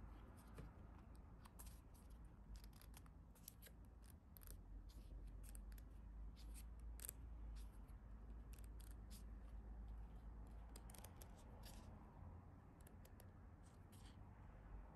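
Scissors snipping faintly in short, irregular runs of crisp clicks, as when packaging is cut open.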